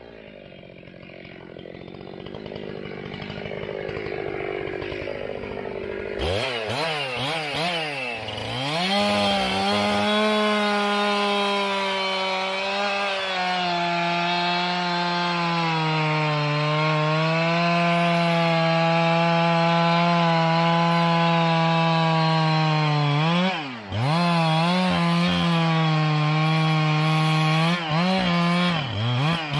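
Old two-stroke gas chainsaw: after a quieter stretch of rising noise, it comes in sharply at high revs about six seconds in, wavers for a couple of seconds, then runs steadily at high speed, dipping and picking back up briefly at about twenty-four seconds and again near the end.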